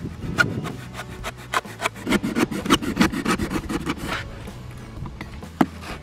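Utility knife blade cutting through corrugated cardboard: a run of short scratchy cutting strokes, heaviest from about two to four seconds in, with a sharp click near the end.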